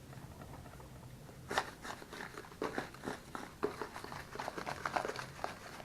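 Grated laundry soap and baking soda being stirred together in a container, a run of short, irregular scraping and clicking strokes starting about one and a half seconds in.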